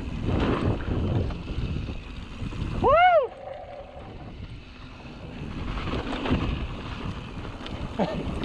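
Wind buffeting the camera microphone over a mountain bike's tyres rolling on a dirt singletrack, with a rider's loud whoop about three seconds in.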